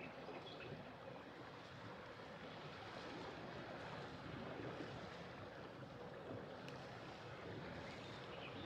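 Motor yacht under way at slow speed: water washing along the hull over a faint, steady engine hum.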